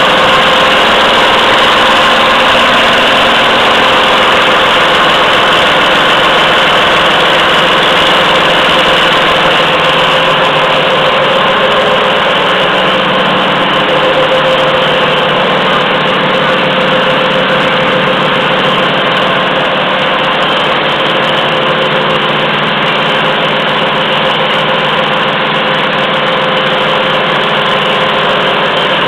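Automatic pocket tissue making machine running, a loud, steady mechanical noise with a constant hum and no pauses.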